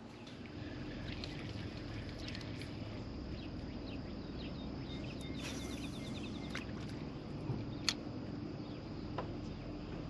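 Steady low hum with a faint steady whine, typical of an electric trolling motor running on a bass boat. A short rapid chirping trill comes about five and a half seconds in, and a few sharp clicks, the loudest near eight seconds.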